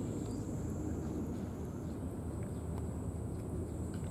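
Steady low outdoor rumble, with faint small clicks scattered through it from a cat chewing and licking food out of a tray.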